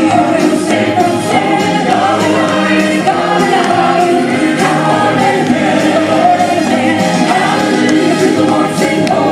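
Mixed gospel vocal group of men and women singing in close harmony into microphones, amplified through a sound system.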